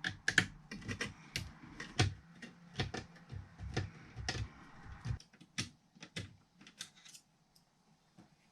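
Irregular sharp clicks and taps of a car radio head unit's casing and parts being handled and worked with hand tools during dismantling, several a second, dying away about seven seconds in.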